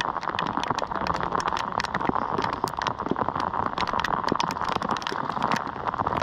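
Steady rain falling, a dense patter of many sharp individual drop ticks over an even hiss.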